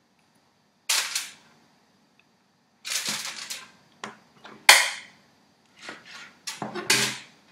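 Aluminium foil crinkling in a series of short, sharp crackling bursts as it is gripped and folded by hand.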